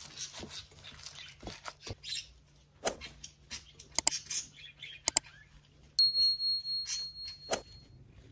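Minced lamb being kneaded by hand in a glass bowl: soft wet squishes and small clicks. Then come two sharp mouse-click sounds and a high ringing notification-bell tone from a subscribe-button animation, which sets in suddenly about six seconds in and wavers as it fades over about two seconds.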